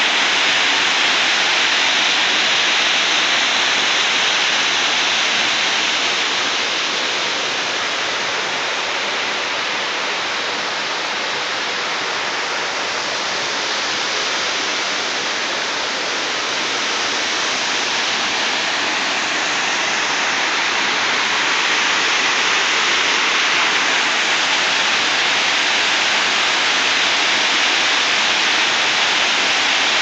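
Waterfall plunging in twin streams over a rock ledge into a pool: a steady, loud rush of falling water, dipping slightly midway and swelling again.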